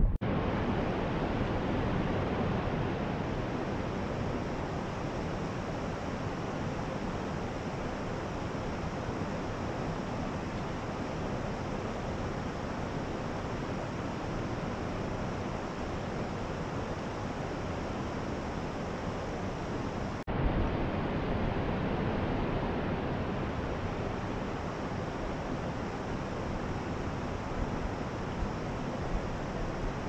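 Steady rush of water from the Ras el Ma mountain spring and the stream it feeds, with no pitch or rhythm. It cuts out for a moment about twenty seconds in, then resumes.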